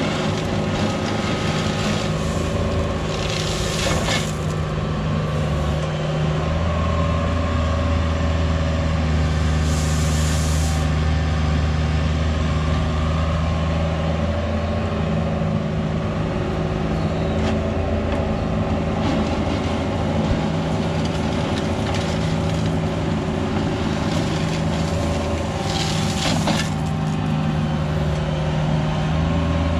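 Cat 304 mini excavator's diesel engine running steadily under working load while it digs and swings gravel, its note growing fuller about six seconds in. Three short rushing bursts of noise come over it, at about four, ten and twenty-six seconds in.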